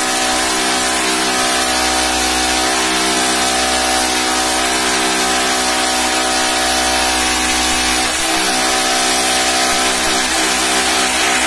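Electric drill running steadily with its 8 mm bit in a wall hole, being worked round to widen the hole so a larger plastic wall plug fits tightly. The motor dips briefly about eight seconds in.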